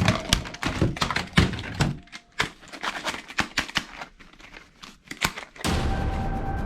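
Quick irregular clicks, knocks and rattles of hard plastic toy guns being handled. Background music starts near the end.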